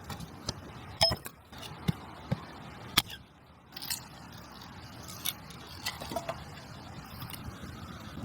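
Irregular sharp clicks, knocks and scrapes of things being handled, the loudest about a second in and again about three seconds in, over a steady low background noise.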